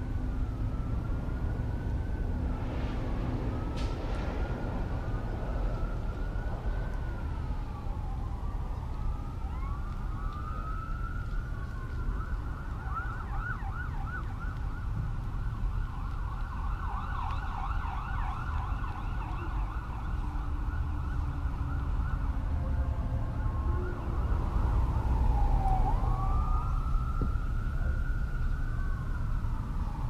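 Emergency vehicle siren in a slow rising-and-falling wail, switching to a fast yelp about twelve seconds in and back to the wail near the end, over a steady low rumble.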